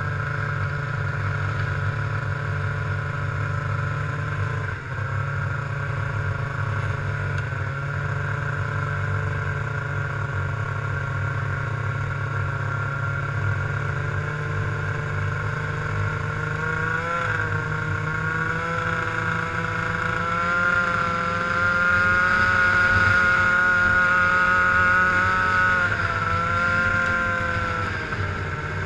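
Snowmobile engine running at trail speed over a steady low rumble. Its pitch climbs gradually through the middle, with a brief wobble partway. The engine grows louder for a few seconds past the midpoint, then eases off near the end.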